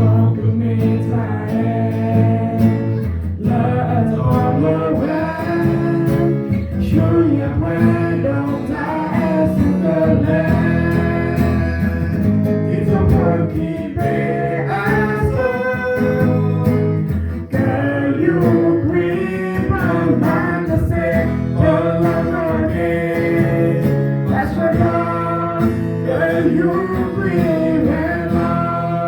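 Music: a song with a singing voice over guitar accompaniment.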